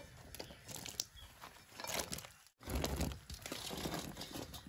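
Faint crackling and splashing of ash gourd cubes going into a kadhai of hot water to boil, with scattered light ticks and a brief break about halfway.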